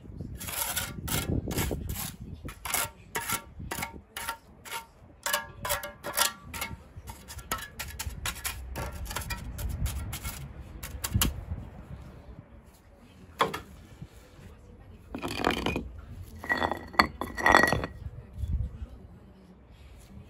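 Steel mason's trowel clinking and scraping against concrete and the edges of the paving stones while fresh mortar is spread and patted into a hole in a stone flag paving: a quick run of ringing taps, about two or three a second, for the first ten seconds or so. Later come a few separate, louder ringing scrapes and clinks, the loudest about seventeen seconds in.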